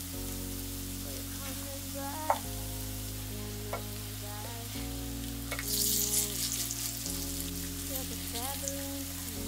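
Shredded sweet potato pancakes sizzling in hot oil in a frying pan, the sizzle swelling for a second or two past the middle as a wooden spatula presses them flat. Soft background music plays underneath, its chords changing every couple of seconds.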